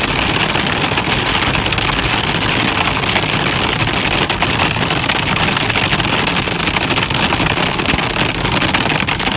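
Hail and heavy rain pelting a vehicle's windshield and roof, heard from inside the cab: a loud, steady, dense clatter of small impacts with wind noise.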